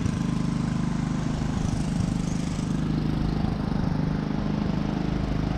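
An engine running steadily at a constant speed, an even drone with no change in pitch.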